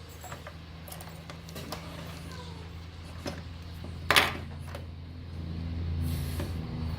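Plastic toy car parts clicking and knocking as they are handled and fitted, with one louder clatter about four seconds in, over a steady low hum.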